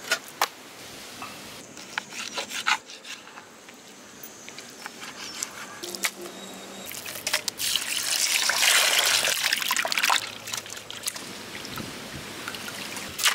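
Hands washing raw lobster meat in a steel bowl of water: sloshing and splashing, loudest from about seven and a half to ten seconds in. Scattered light taps and clicks sound around it as the meat is dropped onto steel plates.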